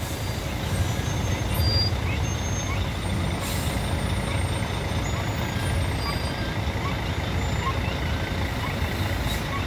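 Steady low rumble of vehicle engines as pickup trucks and a car drive slowly off a river car ferry and up its ramp onto the bank.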